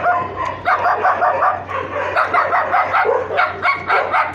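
A dog barking in quick, high yips, several a second, with a short break about half a second in.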